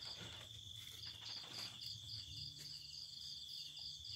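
Insects chirring in the background: a steady high trill with a higher pulsing note about three times a second.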